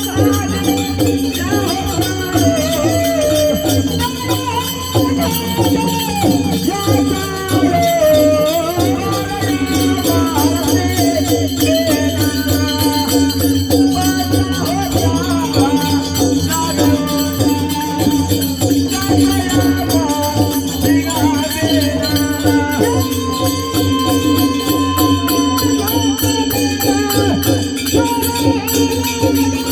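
Music with a steady low drone under a wavering melody, kept in time by a fast rattling, shaker-like beat.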